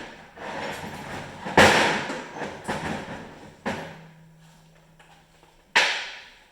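Tools and metal engine parts clanking and knocking during a snowmobile engine teardown: a run of sharp knocks with clattering between them, the loudest about a second and a half in and another near the end, with a short steady hum in between.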